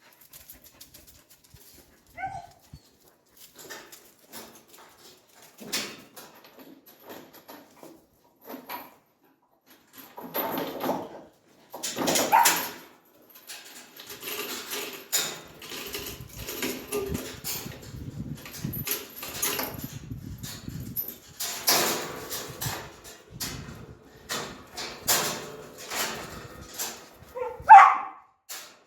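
A dog whining, with a few short yips, over steady rustling, knocking and footstep noises.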